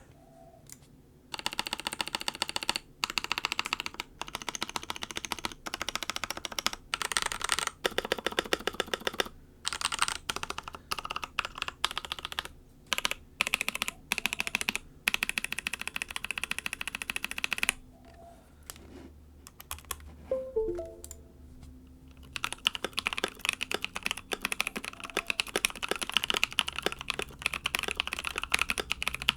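Typing on a mechanical keyboard with stock, unlubed Pixel long-pole linear switches: fast runs of keystrokes with a pause of a few seconds in the middle. The switches are described as really scratchy in stock form, with some spring ping and crunch.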